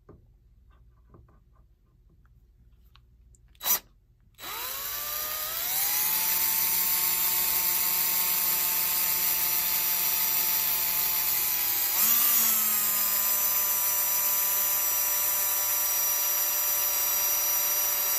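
Cordless drill drilling into the metal housing of a Telechron H clock rotor, pressed on lightly with a greased bit. About four seconds in there is a short burst, then the drill spins up to speed and runs steadily, its pitch shifting briefly about twelve seconds in.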